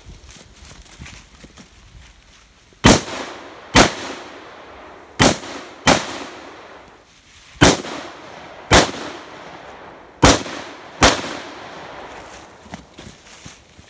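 Eight AR-15 rifle shots fired in quick pairs, starting about three seconds in, each shot followed by a short echo that fades before the next.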